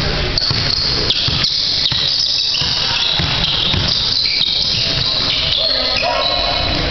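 Sounds of a basketball game on a hardwood gym floor: high-pitched sneaker squeaks throughout, with the thumps of a dribbled ball.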